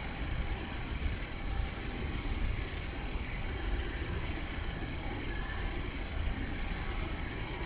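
Steady low rumble with a hiss, like engine noise, with no clear rhythm or distinct events.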